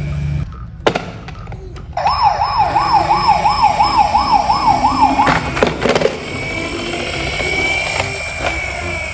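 Electronic toy-style siren warbling quickly, rising and falling about three times a second for about three seconds, then cut off by a few clicks.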